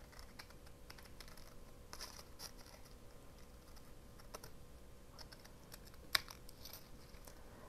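Scissors cutting out a piece of paper with a napkin glued on: faint, irregular snips and small clicks, the sharpest about six seconds in.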